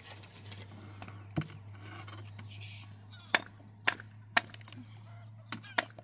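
Chopping or striking blows: about five sharp strikes in the second half, roughly half a second apart, over a low steady hum.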